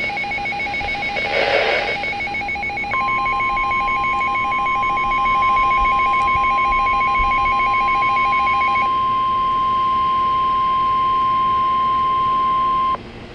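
Emergency alert tones: a fast, evenly pulsing electronic beep, joined about three seconds in by a loud steady single-pitch attention tone. The pulsing stops about nine seconds in and the steady tone cuts off sharply about a second before the end. A brief swell of noise comes about a second and a half in.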